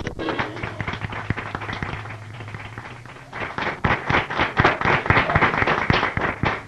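Audience applauding, a dense patter of claps that thins for a moment and then swells again about three seconds in. A faint low hum runs under the first half.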